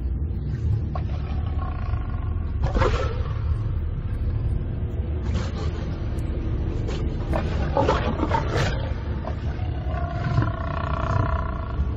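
Lions growling in a den over a steady low rumble, with several short louder snarls through the middle.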